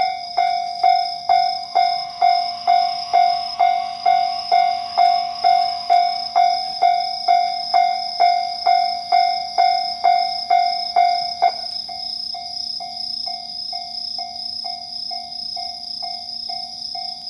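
Japanese railway level-crossing alarm ringing its electronic bell, a pitched ding about twice a second. About eleven seconds in the ding suddenly drops to a much quieter level and keeps ringing at the same pace.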